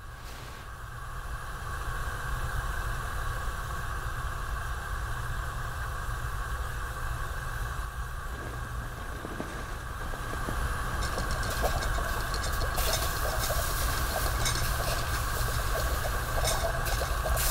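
Gas burner burning steadily with a low rumble and hiss. From about eleven seconds in a brighter hiss and light rattling clicks join it, like a teapot heating on the flame.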